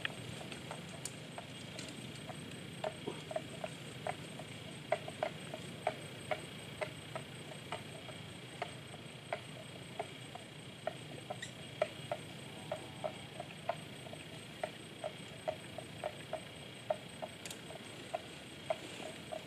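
Water buffalo grazing, their mouths cropping and tearing grass in an irregular series of short, sharp knocks about one to two a second.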